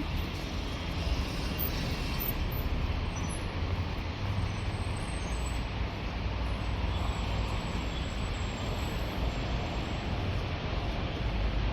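Steady rumble and hiss of a moving vehicle, with no distinct engine note.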